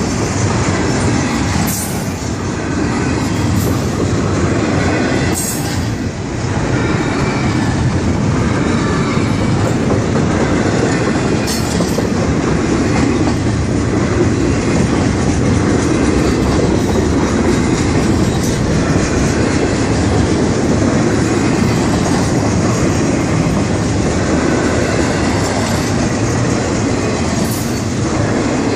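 Norfolk Southern double-stack container train rolling past at close range: the steady rumble of the well cars' wheels on the rails, with a few brief sharp knocks.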